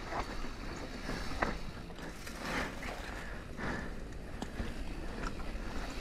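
Rocky Mountain Altitude mountain bike rolling down a dry dirt singletrack: tyre noise on the dirt with a steady low rumble and several short knocks and rattles as the bike goes over bumps, and wind rushing on the helmet-mounted microphone.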